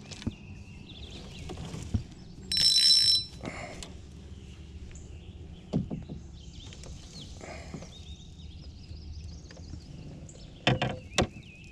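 Scattered knocks and clicks of a fishing rod and a fish being handled in a plastic kayak. About two and a half seconds in there is a loud, high-pitched buzz lasting under a second, and a short cluster of knocks comes near the end.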